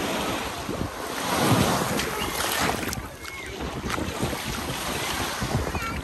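Small sea waves breaking and washing up a sandy shore, swelling loudest about a second and a half in, with wind buffeting the microphone.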